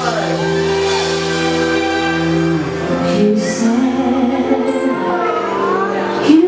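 Live band playing, with held keyboard chords, drums and guitar, and a voice singing over them; a cymbal crash about three seconds in and another just before the end.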